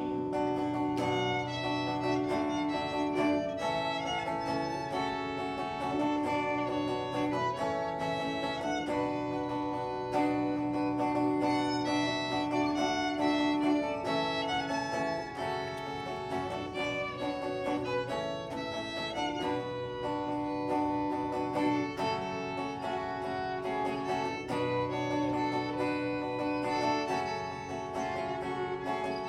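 Fiddle playing a slow melody in long held notes over a plucked acoustic guitar accompaniment: an instrumental break between verses of a folk ballad, with no singing.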